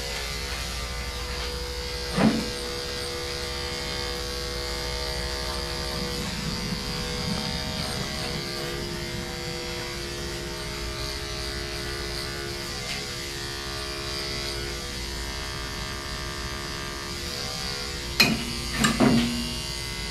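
Electric dog-grooming clipper running steadily with an even motor hum as it shaves the dog's coat. A brief louder knock comes about two seconds in, and two more near the end.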